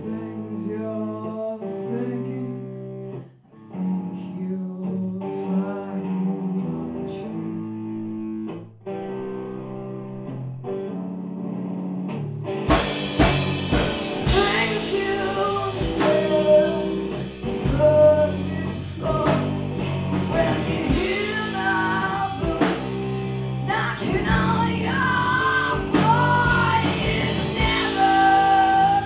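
Live punk-rock band: an electric guitar plays on its own for about the first thirteen seconds, then the drums and bass crash in with the full band and a singer.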